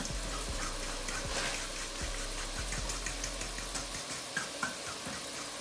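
Steady sizzle of food frying in hot oil on the stove, with scattered light clicks.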